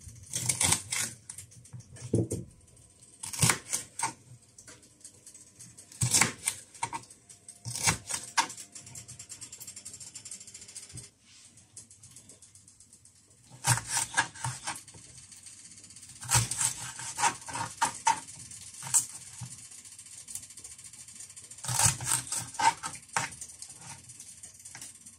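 Kitchen knife chopping green bell pepper on a wooden cutting board, each cut ending in a knock of the blade on the board. Single cuts a couple of seconds apart at first, then quick runs of chops in the second half.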